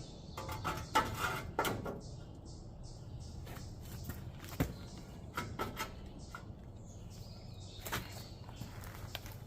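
Scattered knocks and clatters of parts being handled and fitted, a cluster of them in the first two seconds and single knocks around halfway and near the end, over a steady low hum.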